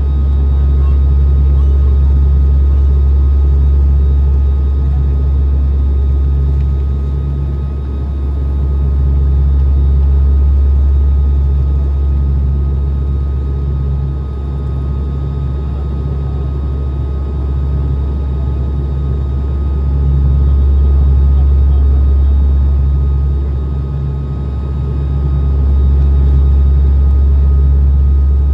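Airliner cabin noise during the climb after takeoff: a loud, deep, steady engine drone with a pulsing beat in it and thin steady whining tones above, swelling and easing slowly every ten seconds or so.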